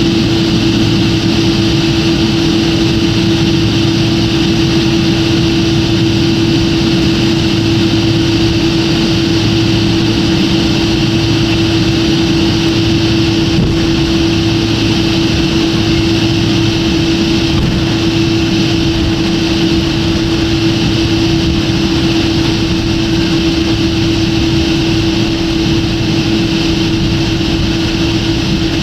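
Airliner cabin noise on the ground after landing: the jet engines idling, heard as a steady rumble and hiss with a constant hum.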